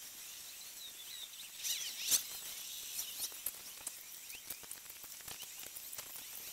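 Outdoor ambience: a steady high hiss with many short, high chirps and sharp clicks, the loudest cluster about two seconds in.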